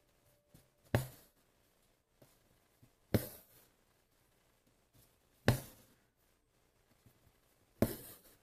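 Embroidery needle punching through taut hooped fabric, then the stranded floss pulled through after it with a short hiss, four times at an even pace of about one stitch every two seconds.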